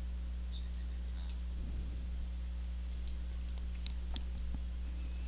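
Computer mouse clicking a few times, unevenly spaced, over a steady low electrical hum.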